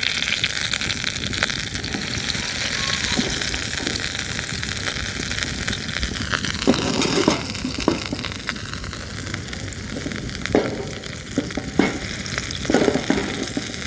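Hamburger patties frying in grease in a pan: a steady sizzle and crackle of hot fat, with a few brief louder knocks in the second half.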